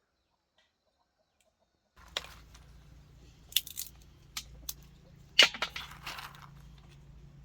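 A series of sharp cracks and knocks over a low steady hum, starting about two seconds in; the loudest crack is about halfway through.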